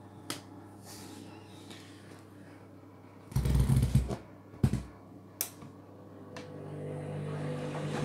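Candy Grand'O Vita front-loading washing machine in a rinse: the motor hums steadily while the drum turns, with a few light clicks. Wet laundry and water thud and splash heavily a little after three seconds in and again near five seconds. Near the end the motor hum rises and grows louder as the drum speeds up.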